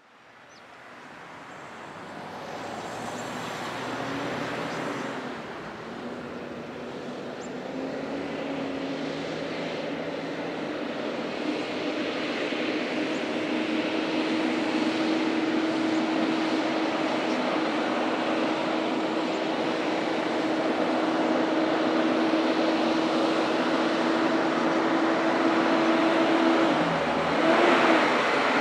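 Kenworth K104B road-train prime mover hauling a locomotive on its trailer, approaching with a steady engine drone that grows louder throughout. Near the end the engine note briefly drops and climbs again. Other traffic passes early on.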